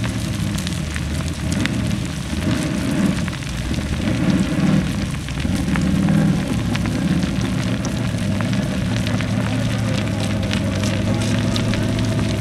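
Formula Offroad buggy's engine running hard on a steep dirt hill climb. The revs swell in surges through the first half, then hold steadier. Over it comes a continuous crackle of dirt and stones thrown up by the paddle tyres.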